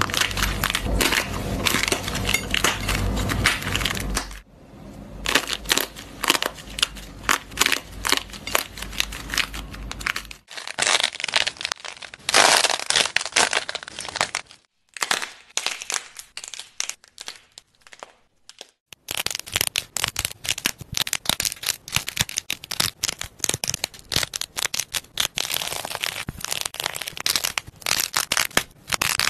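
Hands squeezing and tearing clay that has dried to a crust, making dense crackling and crunching. It comes in several separate clips, and is sparser and quieter for a few seconds just past the middle.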